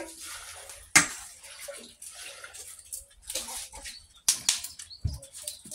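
A slotted spatula stirring and scraping ahiguaste seeds and maize kernels as they toast on a clay comal, giving an uneven dry rustle. Sharp knocks about a second in and about four seconds in, and a low thump just after five seconds.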